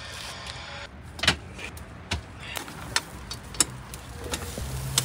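Music stops about a second in, then a handful of sharp metal clinks, steel meat hooks knocking against the rebar bars laid over a tandoor, over a steady low background rumble.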